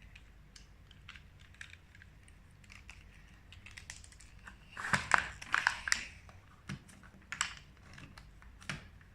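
Plastic clicks and rattles of a Zuru X-Shot Micro toy dart blaster being handled and worked as someone tries to prime and load it, with a louder flurry of clattering about five seconds in.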